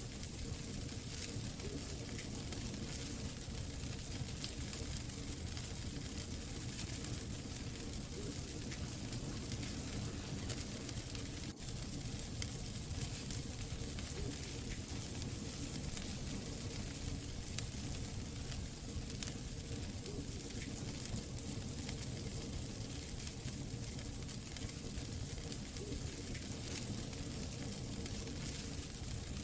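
Wood fire crackling steadily in a fireplace, with many small pops and one sharper pop a little past halfway.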